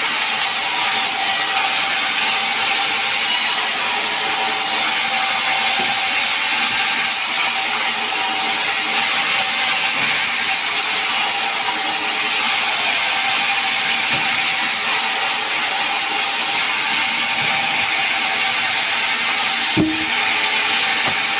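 Sawmill saw running steadily through pine wood, an even, continuous sawing noise with a steady tone underneath. A single sharp knock comes near the end.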